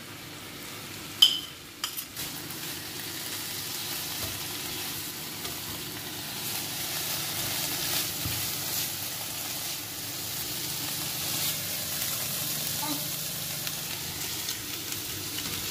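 Beef pieces and garlic frying in a pan, a steady sizzle. The meat's juices have cooked off, so it fries rather than stews. There is a sharp knock about a second in and a couple of lighter ones just after.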